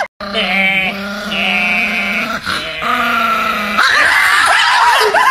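A Chihuahua and a man howling together: two long held notes, his steady and low under the dog's higher, wavering howl. From about four seconds in, a louder, rougher howl.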